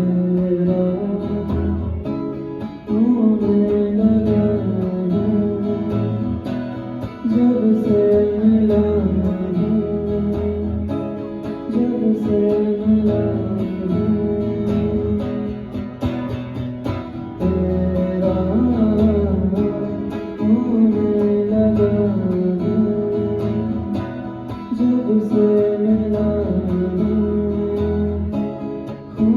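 Amplified acoustic guitar strumming chords in an instrumental passage of a song, with low bass notes that change every few seconds.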